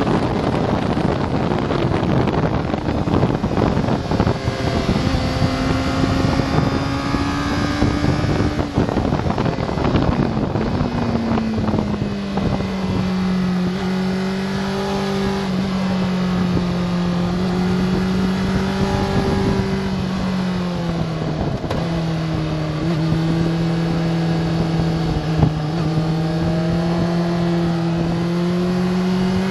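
Sport motorcycle engine heard from an onboard camera, with heavy wind rush while it brakes from high speed and the engine pitch drops in steps as it downshifts. It then runs steadily at low revs through a slow corner, and the pitch slowly rises near the end as the throttle opens.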